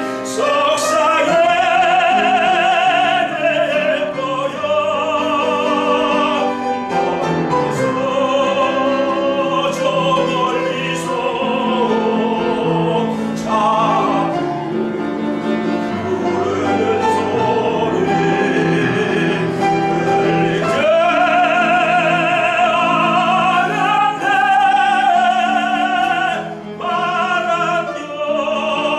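Tenor singing a Korean art song in operatic style, holding long notes with a wide vibrato, with piano accompaniment.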